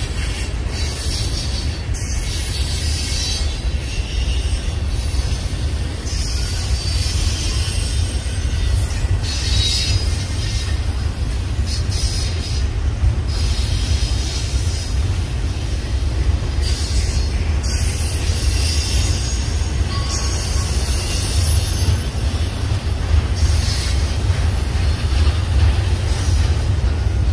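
Union Pacific double-stack intermodal train's container well cars rolling past: a steady low rumble of wheels on rail, with a high hiss that comes and goes every few seconds.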